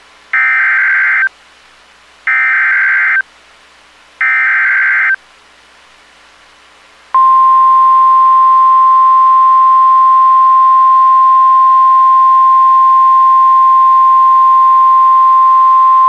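NOAA Weather Radio emergency alert: three short bursts of buzzy SAME digital header data, about a second apart, then the steady 1050 Hz Warning Alarm Tone held for about nine seconds. These tones announce a severe thunderstorm warning.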